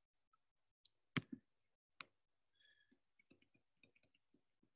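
Stylus tapping and writing on a tablet screen: a few sharp taps, the loudest about a second in, then a run of light ticks as a handwritten term is erased and rewritten.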